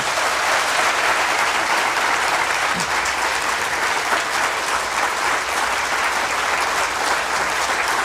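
Audience applauding steadily: dense clapping from a full auditorium.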